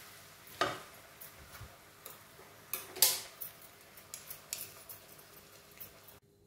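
Silicone spatula scraping garlic-ginger paste out of a small bowl into a pan of onions frying in oil, over a faint sizzle. A few light taps and clinks, the loudest about three seconds in.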